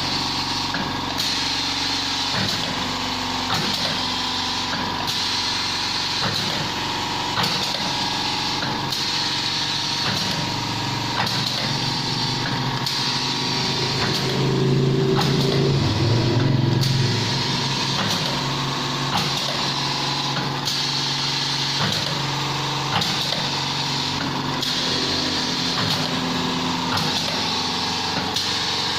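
Automatic screen-printing machine for plastic bags running through its print cycles: a steady motor hum with a click-knock repeating about every 1.3 seconds. A deeper, louder hum swells for a few seconds about halfway through.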